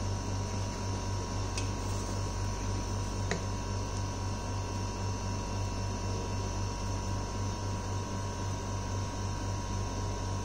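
Steady low electrical hum with a thin steady whine above it, and two small clicks less than two seconds apart in the first few seconds.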